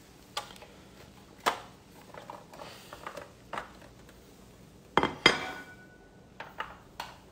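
Clinks and knocks of kitchenware, a few sharp separate strikes, the loudest a pair about five seconds in as a ceramic plate is set down on the countertop, ringing briefly.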